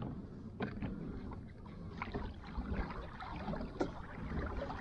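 Water moving softly against a fishing kayak's hull, a low steady sound, with a few faint knocks.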